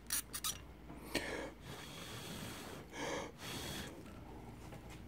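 A few light metal clicks of needle-nose pliers on the alternator's stator wire leads during soldering, then two short breaths, about one second and three seconds in.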